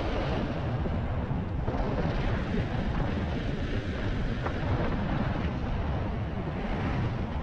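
Wind buffeting the microphone of a rider on a Begode MSX electric unicycle in motion: a steady, rushing low rumble.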